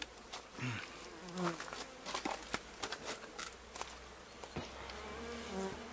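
Honeybees buzzing past in short passes, each buzz rising or falling in pitch as a bee flies by, with scattered sharp clicks and knocks.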